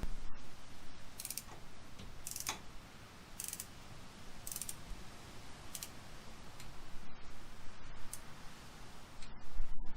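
Ratcheting torque wrench clicking in short strokes, about one a second, tightening a new oil drain plug to 15 Nm.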